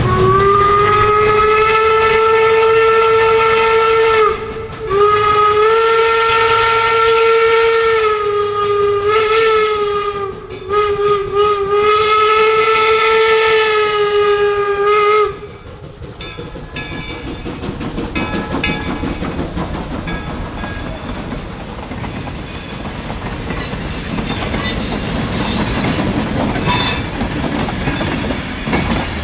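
Steam whistle of the 4-4-0 locomotive York #17 blowing three long blasts, the middle one wavering in pitch. After about fifteen seconds it stops, and the rumble and clickety-clack of the four replica passenger coaches rolling past takes over, with a few sharp clicks near the end.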